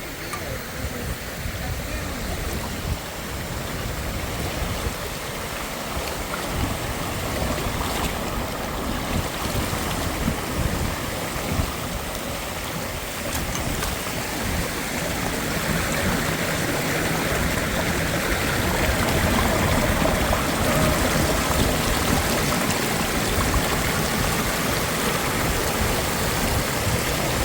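Creek water rushing steadily, growing somewhat louder about halfway through.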